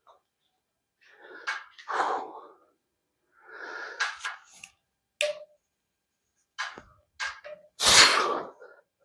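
A man's forceful, effortful breaths (sharp puffs and gasps) as he strains through cable face pull reps, with a few short sharp clicks between them; the loudest breath comes near the end.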